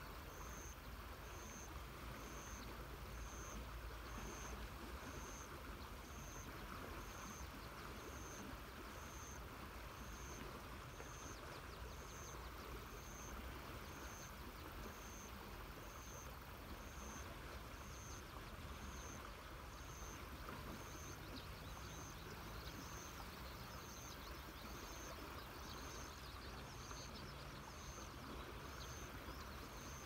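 Steady rushing of river water, with a low rumble underneath. A short, high-pitched note repeats about once a second throughout, and there are a few faint chirps.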